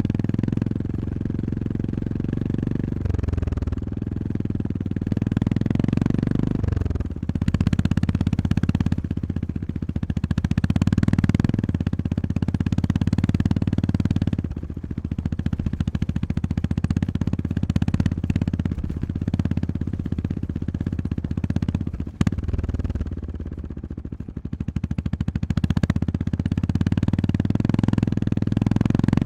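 Honda GB350S's air-cooled single-cylinder engine running under a rider's changing throttle. The revs drop sharply about three and seven seconds in as it changes gear, then rise and fall. There is a brief knock about 22 seconds in.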